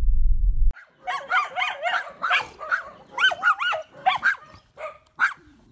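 A deep pulsing sound from a news logo animation cuts off sharply less than a second in. Then a dog gives a string of short, high whines and yips, each rising and falling in pitch.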